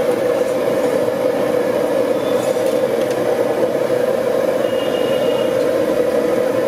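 Samosas deep-frying in a kadai of hot oil: a steady, unbroken sizzle and bubbling.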